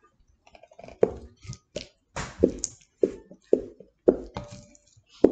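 Black plastic slotted spoons stirring and lifting thick glue slime in a ceramic bowl: a run of about eight wet knocks and squelches, roughly one every half second, as the spoons hit the bowl and the slime plops back.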